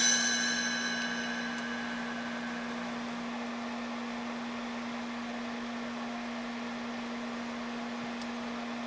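A struck metal object rings out like a bell and fades away over about two to three seconds, over a steady low hum.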